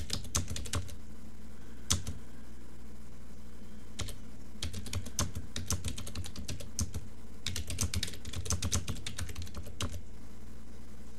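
Typing on a computer keyboard: bursts of quick keystrokes with short pauses between words, stopping about ten seconds in.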